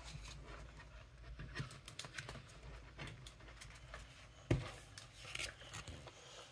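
Quiet handling noises, scattered light clicks and rustles, typical of trading cards and pack wrappers being handled, with one louder knock about four and a half seconds in.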